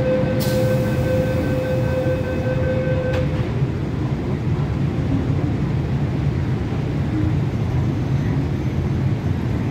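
MTR M-Train door-closing warning tone, sounding steadily for about three seconds while the train and platform screen doors close, ending with a knock as the doors shut. A steady low rumble of the train and station runs underneath.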